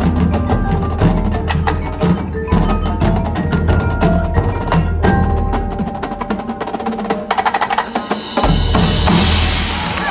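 Marching band playing a percussion-heavy passage, with the front ensemble's mallet instruments and drums striking a driving rhythm over sustained pitched notes. The low end drops out briefly about seven seconds in during a quick run of strikes, then comes back with a bright, full wash near the end.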